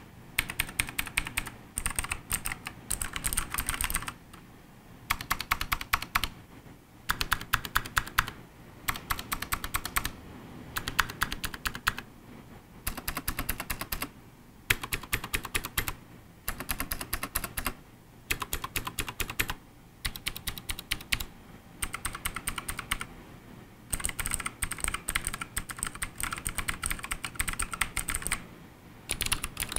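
ABKO Hacker K6600 mechanical keyboard with Kailh Blue clicky switches being typed on, in quick runs of sharp clicking keystrokes broken by short pauses.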